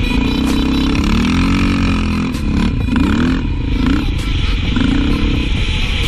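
Yamaha quad ATV engine revving up and down as it climbs and crests sand dunes, with heavy wind rumble on the mounted camera's microphone.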